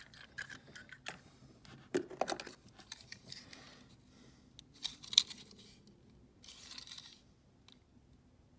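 Loose die-cast toy cars being handled on a tabletop: scattered small clicks and knocks as they are moved and picked up, with brief scraping rustles about five seconds in and again around seven seconds.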